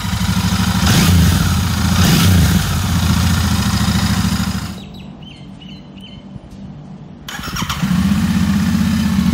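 Motorcycle engine revving twice over a fast idle, then a quieter gap of a couple of seconds with a few short high chirps. Near the end, a Royal Enfield Continental GT 650's 648 cc parallel-twin on its stock exhaust settles into a steady idle.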